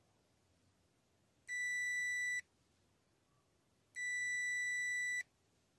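Super Select TMT460012 digital multimeter's continuity beeper sounding twice, each a steady high beep about a second long, as its probes bridge a mini blade fuse. The beep signals continuity: the fuse is good, not blown.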